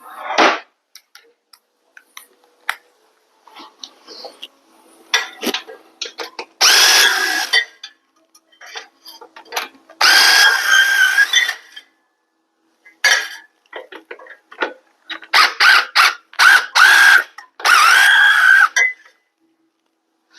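A cordless power tool runs in several short bursts on a motorcycle bolt, its motor whine rising and falling in pitch as it speeds up and slows, with small metal clicks in the pauses between bursts.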